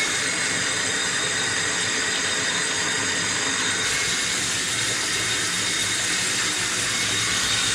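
Tap water running steadily, filling a container, with a slight change in tone about four seconds in.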